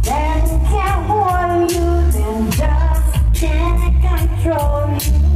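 A vocal record played loud over a sound system: a deep, heavy bass line under drums and hi-hats, with a singer's melody on top.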